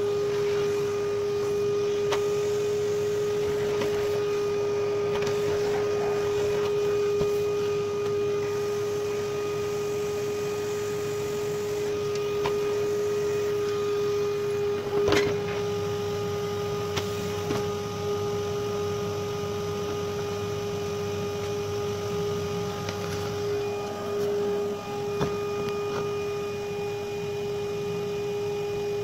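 A steady electrical hum, one held tone with overtones, with a single knock about halfway through.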